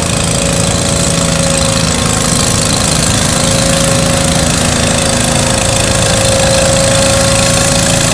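Ford garden tractor's engine running steadily under load as it pulls a transfer sled down the track.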